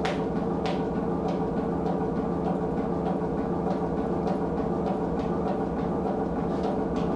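Music: a sustained, droning chord with a soft drum-like hit repeating about every two-thirds of a second.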